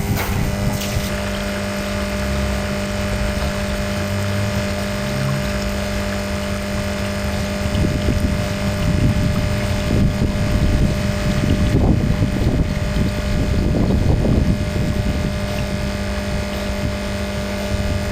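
Vibratory water pump running with a steady mains hum, pumping strongly after its vibrator and piston gaps have been re-adjusted. Water rushes and splashes over the hum, louder in the middle.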